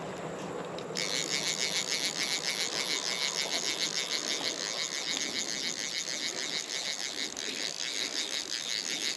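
A cicada singing: a loud, fast, evenly pulsing high buzz that starts about a second in.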